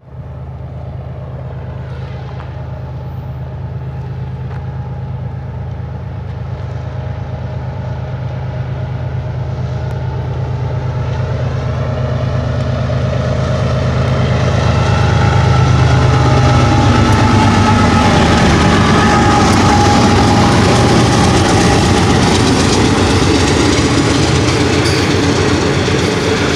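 Three GE diesel locomotives of a BNSF freight train (an ES44C4 leading, two Dash 9-44CWs trailing) running as they approach, their low engine drone growing steadily louder until they pass about halfway through. Behind them the intermodal cars roll by, with the clatter of steel wheels on the rails.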